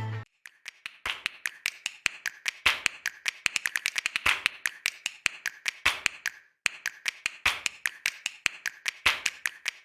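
Rapid, irregular light tapping and clicking, many small hard strikes in quick succession, with a brief pause a little after six seconds.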